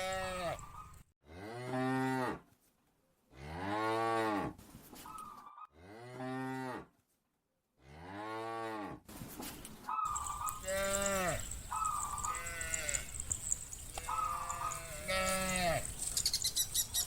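Cows mooing in a series of about eight separate calls, each rising and then falling in pitch and lasting around a second.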